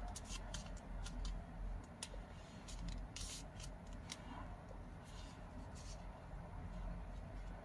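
Origami paper being creased and folded by hand: scattered short crinkles and crackles as the paper is pressed and bent.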